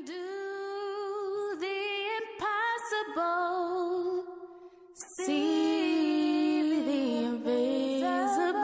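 Wordless a cappella singing by a woman's voice, long held notes with vibrato and slides between pitches. After a short break near the middle, a second voice joins in harmony.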